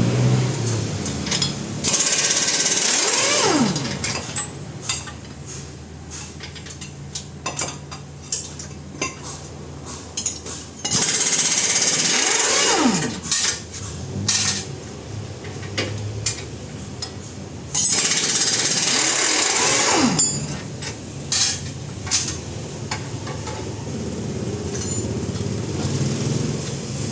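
A power tool run in three bursts of about two seconds each, each ending with a falling whine as it spins down, with scattered metal clicks and knocks between the bursts.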